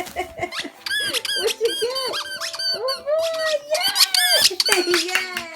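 Squeaky dog toy squeezed over and over: a rapid run of high rubbery squeaks, most of them short and a few drawn out.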